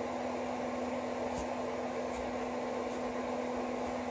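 Steady electrical hum with a constant hiss underneath, and a few faint clicks.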